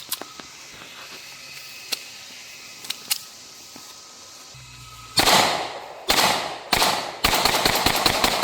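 Bul Armory Ultralight Pro pistol being fired, with faint scattered shots before it. About five seconds in come three loud single shots a little under a second apart, then a rapid string of shots at about six a second.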